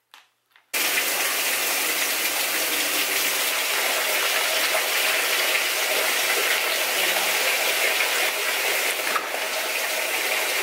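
Water gushing steadily into a washing machine as it fills for a load. It starts suddenly about a second in.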